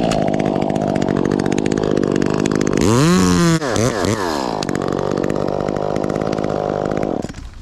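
Chainsaw cutting a limb of a dead white oak: the engine runs at high revs, and the revs dip and recover twice between about three and four and a half seconds in, then it stops shortly before the end.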